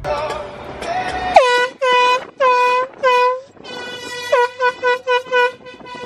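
Air horn blasted repeatedly: four blasts of about half a second each, then a quick string of about six short toots, each one dipping in pitch as it starts and then holding one steady note. A rushing noise comes before the first blast.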